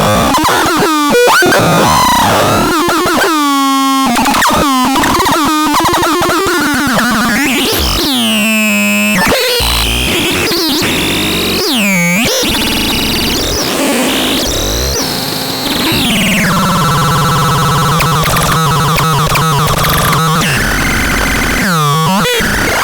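Synthesizer being played in a sound demo: fast up-and-down pitch sweeps mixed with harsh noise. About two-thirds of the way in it settles on one steady buzzing tone, then breaks back into sweeps near the end.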